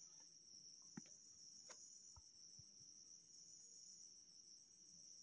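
Near silence, with a faint steady high-pitched trill of crickets in the background and a couple of faint clicks, about one and nearly two seconds in.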